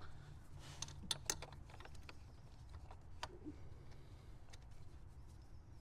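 Scattered light clicks and taps of small screws and a screwdriver against the plastic PCV valve housing as the screws are threaded in by hand, over a low steady hum.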